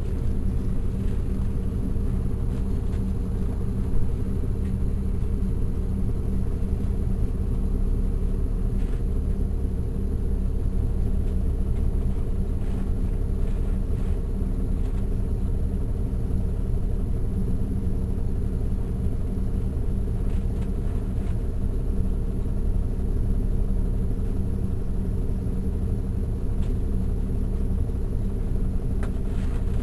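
The Caterpillar C13 ACERT diesel engine of a NABI 416.15 transit bus running steadily, heard from the rear seats inside the bus as a low-pitched drone. A single brief click comes about four seconds in.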